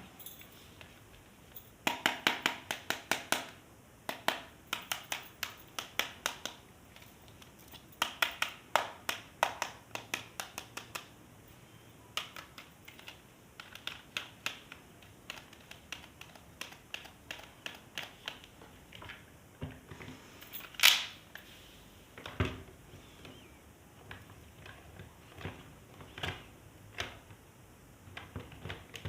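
Plastic toy parts and packaging being handled: quick runs of clicks and snaps in bursts, with scattered single clicks and one sharper snap about twenty seconds in.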